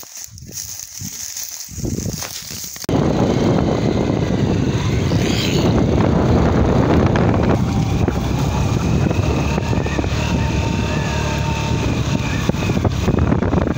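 A vehicle in motion, its running noise mixed with heavy wind on the microphone, starting abruptly about three seconds in and holding steady and loud. Before that there are only quieter outdoor sounds with a little wind.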